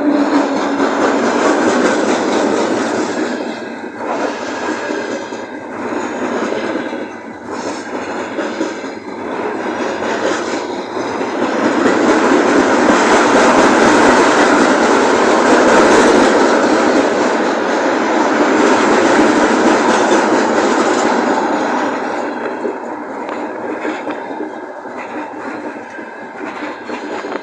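Freight train rolling past, its wheels clacking rhythmically over the rail joints with some wheel squeal. The rumble swells to its loudest about halfway through and eases off near the end.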